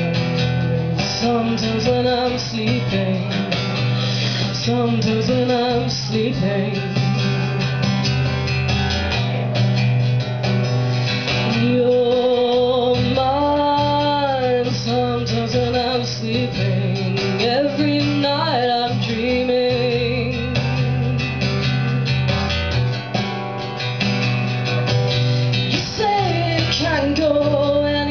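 A woman singing live while strumming an acoustic guitar, her voice gliding between held notes over a steady guitar accompaniment.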